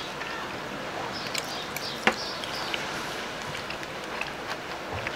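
Eating sounds: small clicks and scrapes of a metal fork in a foam takeout container, with chewing, over a steady background hiss. The sharpest click comes about two seconds in.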